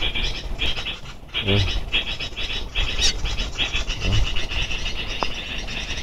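Outdoor wildlife sounds: a dense, high, pulsing chirr that never stops, and a low animal call repeating about every two and a half seconds, heard twice.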